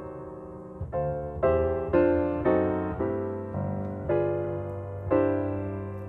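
Background piano music: a slow piece of gently struck notes and chords, a new one about every half second, each fading before the next.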